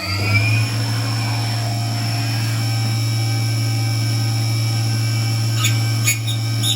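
Electric motor of a machine tool spinning up, its whine rising and levelling off about half a second in, then running at steady speed. A few short clicks near the end.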